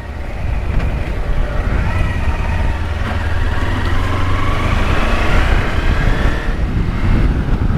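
Kawasaki Versys X-300 motorcycle's parallel-twin engine running under way, its pitch rising slowly as it accelerates and easing off near the end, over a steady road rumble.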